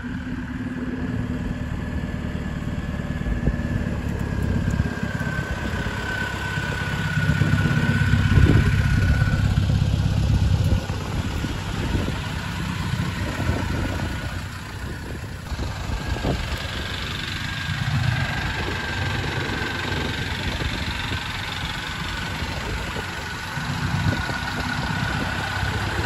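Isuzu TFR pickup with a swapped-in 1.9-litre engine, running; the engine gets louder for a few seconds about a third of the way in, then settles back to a steady run.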